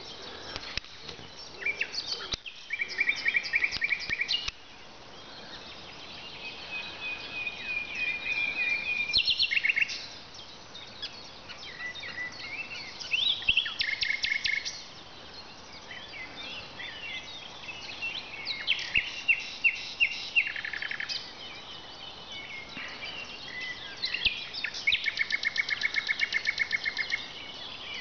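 Common nightingale singing: five phrases with short pauses between them, made of fast rapid-fire trills of repeated notes, one of them a long held whistle that swells in loudness before breaking into quick notes.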